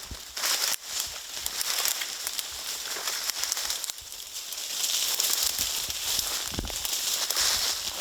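Dry leaves and brush crackling and rustling, with many small crisp snaps and a few soft low thumps about six and a half seconds in.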